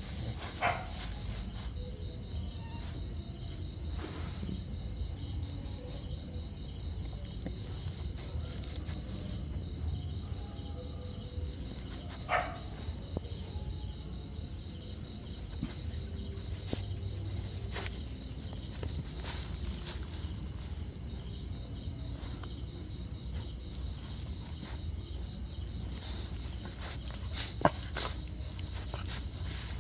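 Steady high-pitched insect chorus, like crickets or cicadas, over a low rumble, broken by a few brief sharp sounds about a second in, around the middle and near the end.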